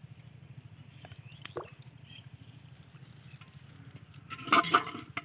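A live fish dropped into a water-filled metal pot: a short, loud splash and clatter near the end, after a faint click earlier on.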